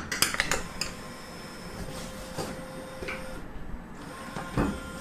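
Claw crane machine's mechanism working: scattered light clicks and knocks, with a faint steady tone for a couple of seconds midway.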